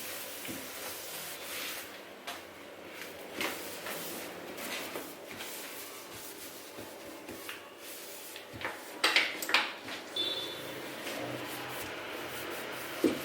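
Household tidying in a kitchen: scattered light knocks and rubbing of things being handled, with a louder clatter about nine seconds in, followed by a brief high ring.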